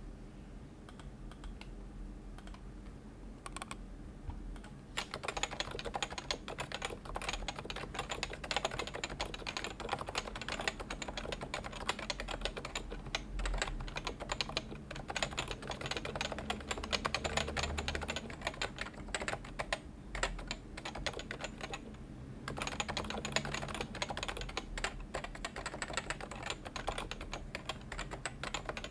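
Typing on a Realforce 106U Topre keyboard with 45 g electrostatic capacitive rubber-dome switches, silencing rings and PBT keycaps. A rapid run of keystrokes starts about five seconds in and pauses briefly about three-quarters of the way through.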